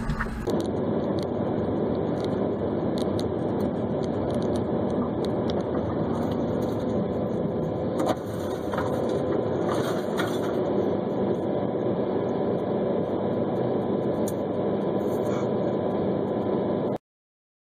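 Steady engine and road noise heard from inside a moving car, with a few short clicks and a brief knock around the middle. It cuts off suddenly near the end.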